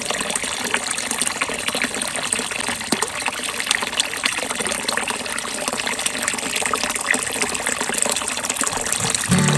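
Water pouring and splashing steadily into a small garden fish pond, a constant gushing trickle full of small splashes.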